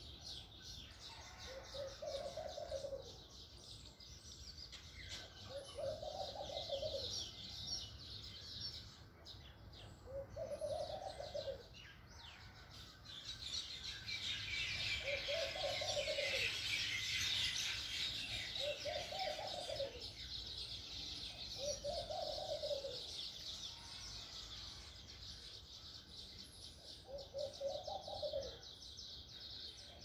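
Dense, constant high chirping and twittering of small birds, with a low hooting call from another bird repeated about every four seconds.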